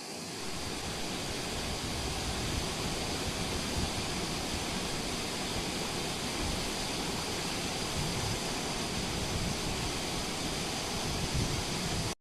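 River water rushing steadily over its bed, a constant even hiss of flowing water.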